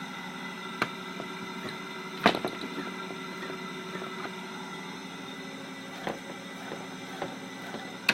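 RcTimer 2814 8120KV brushless motor running at a steady speed with a rough, noisy hum: its bearings are bad. A few sharp clicks cut in, the loudest about two seconds in.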